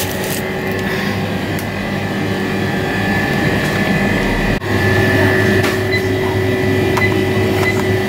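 Steady machine hum with several held tones, dropping out for an instant about halfway through and then continuing.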